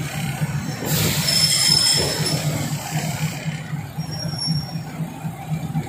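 Diesel train running slowly, its engine humming steadily under the carriage. There is a rush of hiss about a second in, and the wheels give thin high squeals twice.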